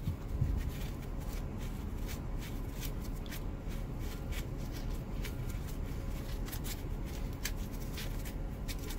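Sandpaper worked by hand over a hard plastic e-brake handle to smooth out bite damage, in short, irregular rasping strokes.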